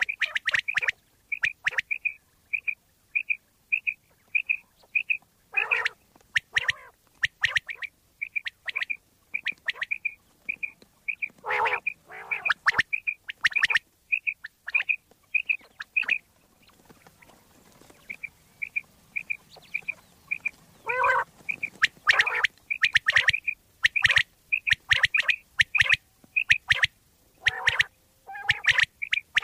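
Common quail calling: a string of short, high notes repeated about twice a second, broken several times by louder, harsher calls, with a short pause about halfway.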